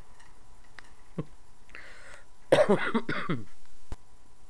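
A man coughs once, a loud rough sound of about a second that starts about two and a half seconds in. Around it come small clicks as the disassembled pistol's parts are handled, with one sharp click just before the end.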